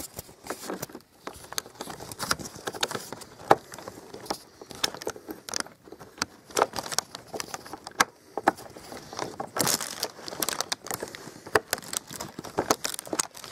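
Hands handling a small plastic-bodied LED TV and its packaging: a dense, irregular run of clicks, knocks and plastic rustling.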